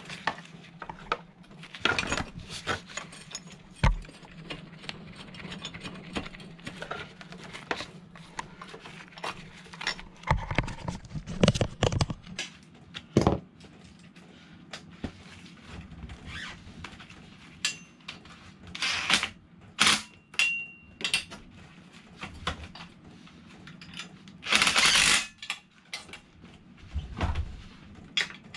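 Hand tools and metal parts clinking, knocking and scraping in irregular bursts as a motorcycle exhaust is fitted to the engine, with two longer, louder noisy bursts later on and a steady low hum underneath.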